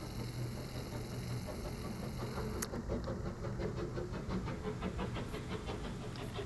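GWR Castle-class steam locomotive 5043 and its coaches passing, heard muffled through soundproofed glazing: a low rumble, joined about three seconds in by a rapid even ticking of about four to five beats a second.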